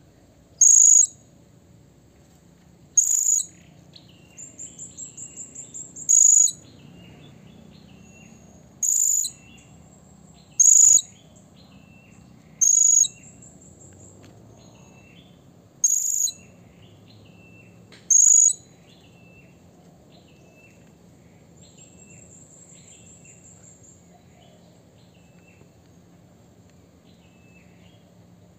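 Blue-crowned hanging parrot (serindit) calling: about eight sharp, very high-pitched shrill notes a couple of seconds apart, with a fast trill of clipped notes between them early on, then quieter from about 18 seconds in apart from one faint trill. Faint lower chirps continue underneath.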